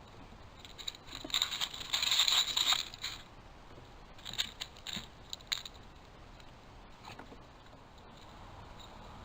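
Animals scrabbling and scraping close to the microphone among the snacks on a picnic table: a long scratchy burst from about one to three seconds in, then a handful of sharp clicks and scrapes.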